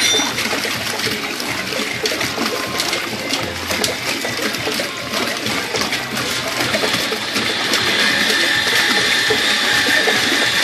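A heavy stream of water pours from a hand-cranked rope pump's 1-1/2-inch PVC outlet and splashes into a plastic tub. The gush gets a little louder in the second half, where a faint steady high tone joins it.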